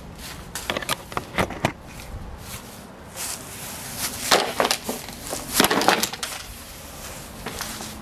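A few light knocks, then two louder crashing clatters about four and six seconds in, as the stripped plastic body of a Ninja coffee maker is thrown down onto the lawn.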